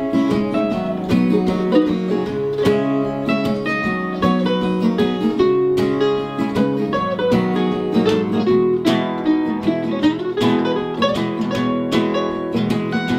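Acoustic guitars playing an instrumental passage of picked notes over held chords, with no singing.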